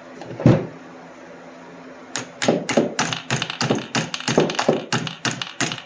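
A single thud, then a quick run of sharp metallic taps, roughly five or six a second, from hand tools working on the chainsaw's clutch side.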